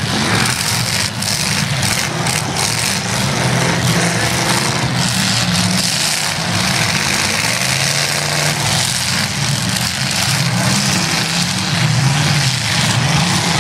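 Demolition derby cars' engines running and revving together under a dense, steady din, with a few sharp knocks in the first three seconds.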